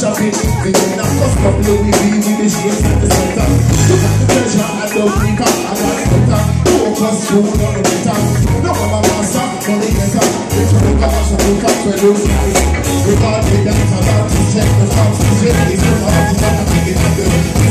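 Live reggae band playing loudly with a heavy bass line and a steady beat of percussion ticks, with a singer over the music, heard from the audience.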